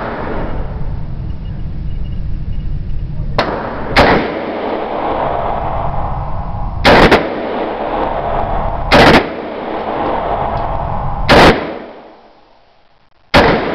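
DPMS AR-15 rifle firing single 5.56 NATO rounds at a steady pace, about one every two seconds, six shots in all, each very loud and sharp. A steady low rumble runs between the shots.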